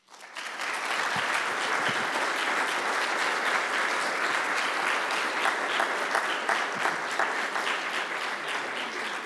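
Audience applauding: many people clapping, starting suddenly and holding steady.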